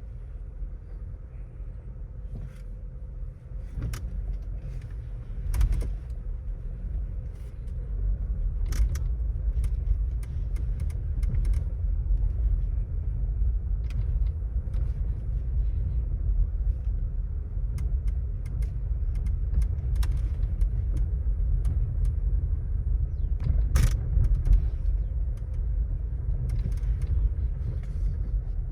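Dashboard of a Volkswagen Taigun GT Plus rattling inside the moving car's cabin: irregular sharp clicks and rattles every second or few seconds over a steady low road rumble. It is a persistent trim rattle that the authorized service center has not been able to fix.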